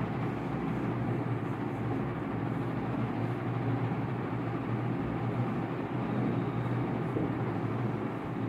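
Steady low hum with a hiss of background noise, unchanging throughout.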